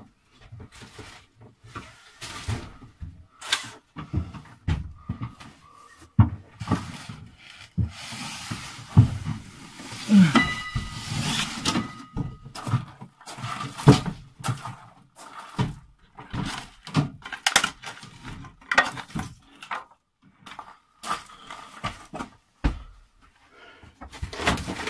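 A large white cabinet being carried and bumped out of a small room: a string of irregular knocks, thumps and scrapes, with a short squeak about ten seconds in.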